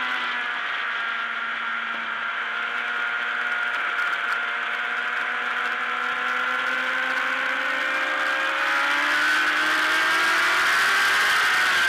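Racing motorcycle engine heard through a camera mounted on the bike, running at steady high revs through a long leaned corner, then revving higher over the last few seconds as the bike accelerates out.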